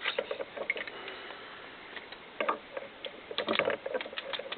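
Metal parts of a Colt M4 .22LR rifle clicking and scraping as the charging handle is fitted back into the upper receiver: scattered light clicks, with two denser clusters about two and a half and three and a half seconds in.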